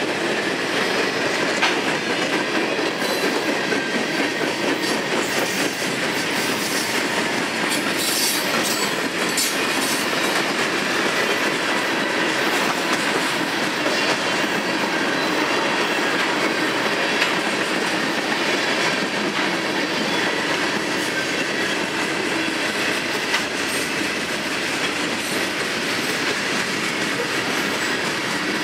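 Freight cars of a long mixed freight train rolling steadily past, their steel wheels rumbling and clattering over the rails.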